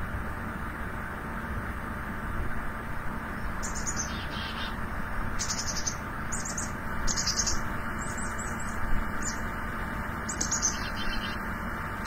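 Recording of a black-capped chickadee giving its chick-a-dee-dee-dee alarm call: several phrases of short high notes, each ending in buzzy dee notes, starting a few seconds in. The number of dee notes signals how great a threat the bird perceives. A steady hiss sits underneath.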